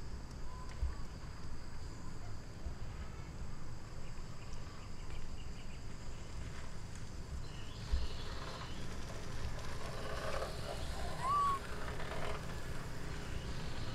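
Outdoor ambience: a steady low rumble under a thin, even high-pitched insect drone. Faint mid-pitched calls come in around the middle, with one short rising-then-falling chirp near the end.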